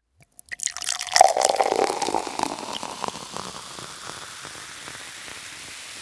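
Water rushing: a few clicks, then a loud gush just after a second in that dies down into a steady hiss.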